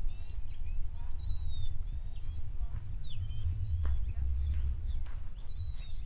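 Several small songbirds chirping and calling, short high whistled notes and down-slurred chirps coming every second or so, over a steady low rumble.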